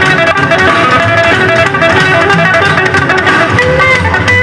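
Music with a prominent guitar and a steady beat.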